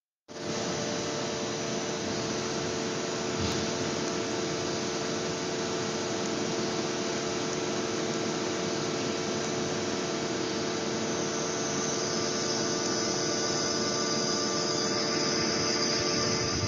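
Steady machine hum and hiss of a running CNC machine tool, with several steady tones, and a single click about three and a half seconds in.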